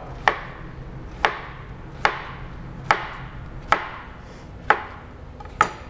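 Chef's knife slicing down through a peeled onion half and knocking on a plastic cutting board, seven sharp strokes about a second apart: widely spaced cuts for a large dice.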